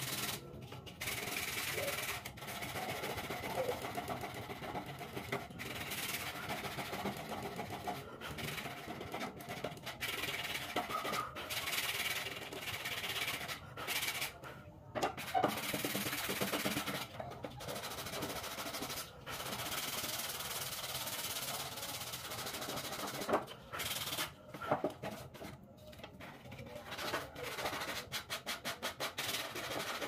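Sandpaper rubbed back and forth by hand on the wooden bird-cage base, a dry scratchy rubbing in uneven runs of strokes, turning into quick, short strokes near the end.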